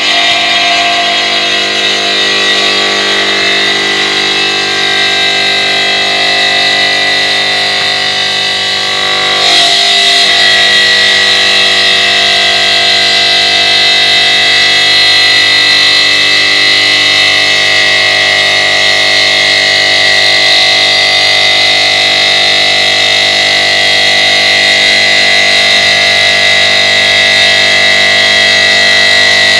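The water-cooled circular blade of a CNC five-axis stone bridge saw cutting through a stone slab: a loud, steady, high-pitched whine with several constant tones. It grows a little louder and brighter about nine and a half seconds in.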